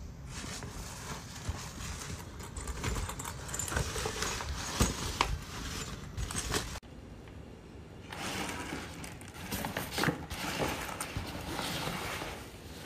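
Handling noise of a small fabric duffel bag: its cloth rustling and crinkling as it is opened and moved about by hand, with scattered sharp clicks and knocks and a short lull about seven seconds in.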